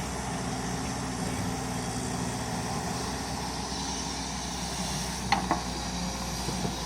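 Komatsu excavator's diesel engine running steadily, with two short knocks in quick succession about five seconds in.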